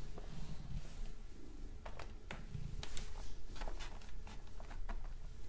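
Faint scattered clicks and taps of bare feet stepping onto a smart bathroom scale, mixed with handling of the camera held in hand, coming mostly from about two seconds in.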